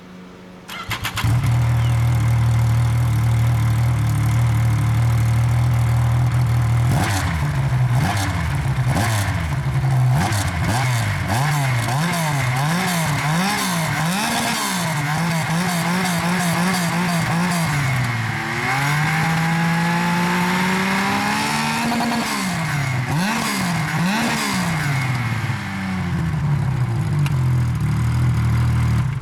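Yamaha Nytro snowmobile's four-stroke three-cylinder engine starting about a second in and idling steadily. It is then blipped on the throttle again and again, with one longer rising rev, before it cuts off at the end.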